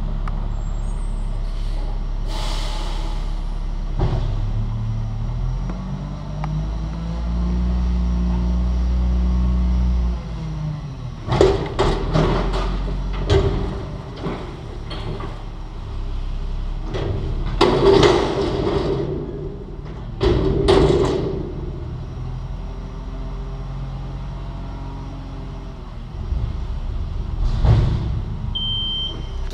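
McNeilus front-loader garbage truck's diesel engine running, revved up for several seconds to drive the hydraulics, then heavy metal bangs and clatter in two bouts as the dumpster is shaken out over the truck, with another bang later. A reversing beeper starts beeping near the end.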